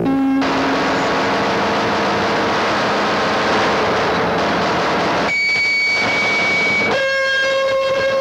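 Electronic synthesizer sound: a loud, steady hiss of noise with held tones over it. A high tone sounds for about a second and a half starting about five seconds in, and a buzzing chord of stacked tones comes in about seven seconds in and is held to the end.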